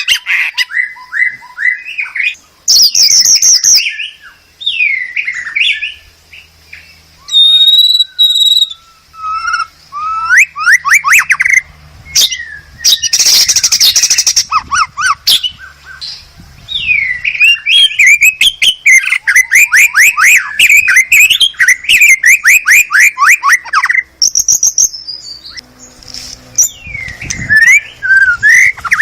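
White-rumped shama singing a varied song in phrases separated by short pauses. The phrases are sweeping whistles, fast runs of short repeated notes, and a harsh rasping burst about halfway through.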